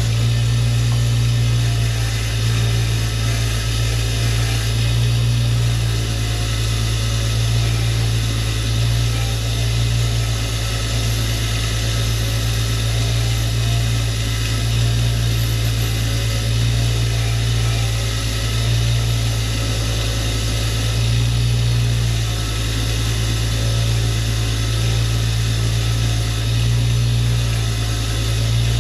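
A steady, loud, low mechanical drone, like a motor running, swelling and easing slightly every few seconds.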